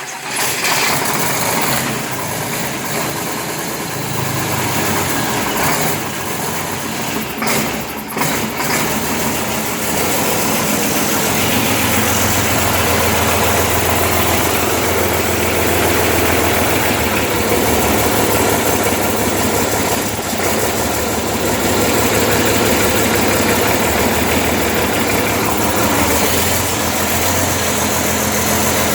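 MT-86 engine running just after being started following a major overhaul. It runs unevenly for the first ten seconds or so, then settles into a steady idle.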